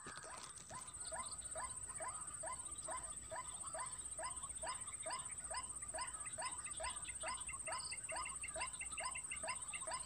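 Lure recording of a white-breasted waterhen (ruak-ruak) call, played to draw birds to the net: a fast, even run of short rising notes, about three a second.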